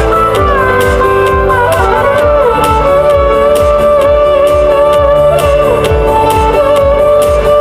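Instrumental music with a steady low beat and a melody line that slides between notes.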